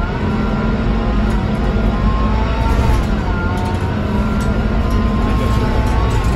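Scania K230UB bus with a Scania DC9-16 five-cylinder diesel, heard from on board while it drives: a steady low rumble with a high whine above it that slowly shifts and rises in pitch, the weird engine sound of this bus.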